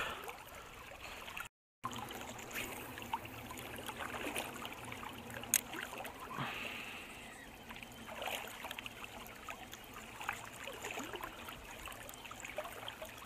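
River current rippling and washing in a steady low hiss of moving water, with scattered faint ticks and one sharper click about five and a half seconds in. The sound cuts out completely for a moment about a second and a half in.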